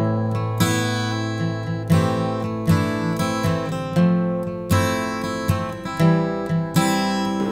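Background music: a strummed acoustic guitar playing chords at a steady, even pace.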